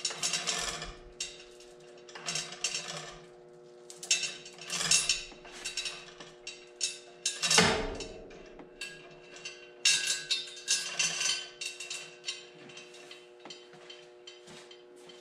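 Hand chain of a chain hoist rattling and clanking in irregular bursts as a V8 engine is lowered into a car frame, with one heavier clunk about two thirds of the way through, over a steady hum.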